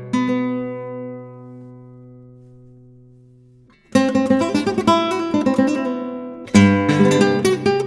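Solo flamenco guitar: a strummed chord rings out and fades for nearly four seconds, then the playing starts again with quick strums and a hard strummed chord about six and a half seconds in.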